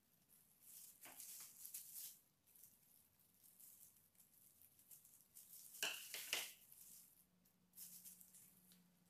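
Faint rustling of disposable plastic gloves being handled, with a quick cluster of two or three sharp scissor snips about six seconds in.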